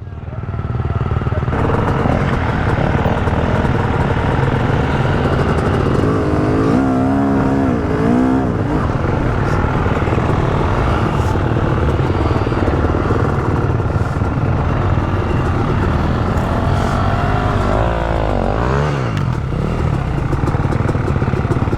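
Two-stroke dirt bike engine, a Yamaha YZ250X, running continuously and revving up and down twice.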